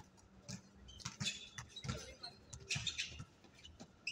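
Sounds of an outdoor pickup basketball game: irregular thumps of the ball on the court, short high squeaks and players' shouts.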